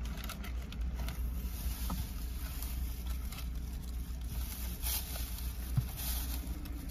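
Faint rustling and small clicks of food and utensils being handled while a sandwich is made, over a steady low hum.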